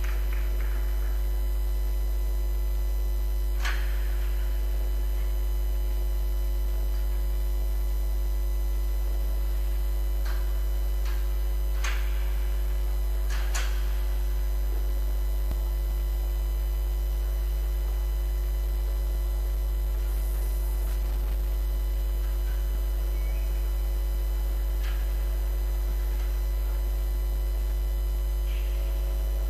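Steady low electrical mains hum in the audio feed, with a few faint clicks.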